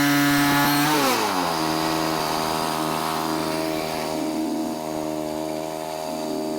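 Gas engine of a Woodland Mills HM126 portable band sawmill at high throttle, throttled down about a second in, its pitch falling quickly and then settling into a steady idle as the cut ends.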